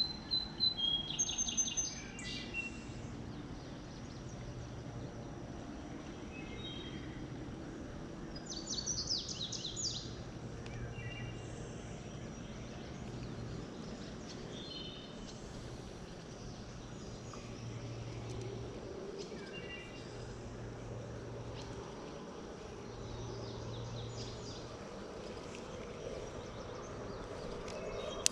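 Birds calling over a steady low outdoor background. Quick runs of high, repeated chirping notes are loudest about a second in and again around nine seconds in, with fainter chirps in between.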